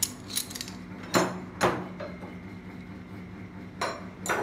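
Steel hand tools (sockets and spanners) clacking against one another as they are handled: about six sharp metallic knocks, the two loudest a little over a second in.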